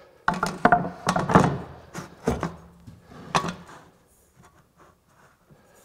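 A wooden board being flipped over and set down on a wooden workbench: a quick run of knocks and scrapes of wood on wood, one more solid knock a little over three seconds in, then a few faint taps.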